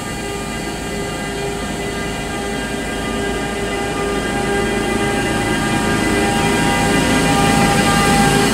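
Bombardier TRAXX Class 186 electric locomotive passing close by at the head of a container freight train. Its steady whine of several held tones sits over the rumble of the wheels and grows louder as it draws level.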